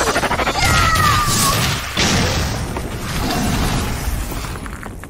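Cartoon sci-fi blaster sound effects: energy guns fire with a fast pulsing buzz and a falling zap, then a booming blast hits about two seconds in.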